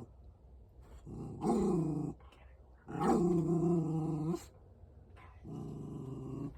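Dog growling in three drawn-out bouts, the middle one longest and loudest, the first wavering up and down in pitch.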